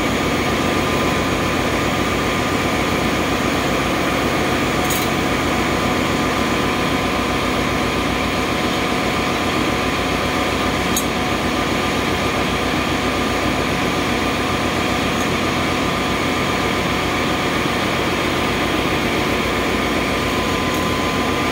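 Steady drone of a ship's engine-room machinery running, a dense unbroken noise with a constant whine riding on it. A couple of faint clicks sound partway through.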